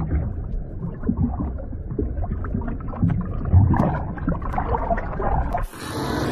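Muffled churning and bubbling of water heard from below the surface as a sea snake swims up to breathe, an uneven low rumble with a few light clicks. Near the end it cuts off abruptly and gives way to a steady hiss.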